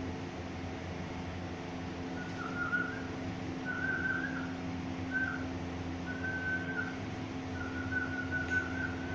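Five short whistled notes at about the same pitch, starting about two seconds in, over a steady mechanical hum.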